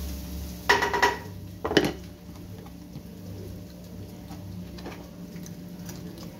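Kitchenware clattering twice, about a second in and again just under two seconds in, each knock ringing briefly, then a faint steady hum and hiss.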